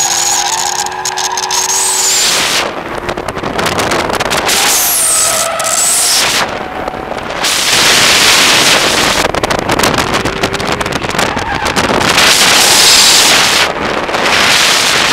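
Holden VE Commodore SS-V's 6.0-litre V8 running hard under throttle as the car drifts, its pitch gliding up and down, over a heavy roar of wind buffeting the outside-mounted microphone.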